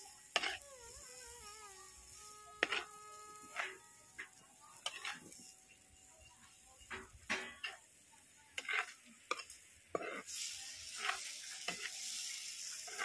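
Steel spoon stirring and scraping dry fish and potato curry against the sides of an earthenware clay pot, in short strokes at irregular intervals. Under it the curry sizzles faintly, the hiss growing stronger near the end.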